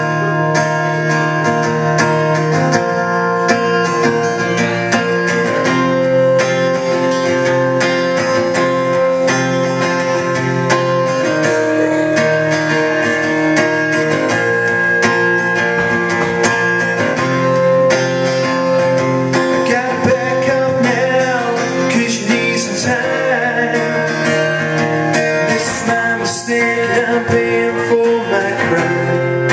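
Acoustic guitar strummed in a steady chord pattern, with a man's voice singing over it for a stretch about two-thirds of the way in.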